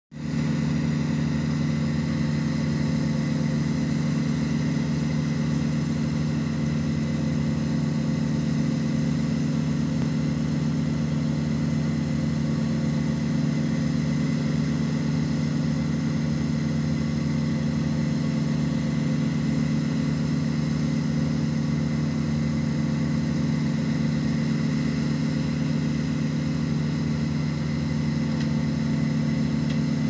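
Heavy engine of a tree-trimming crew's bucket truck and brush chipper running at one steady speed: a constant, unchanging drone.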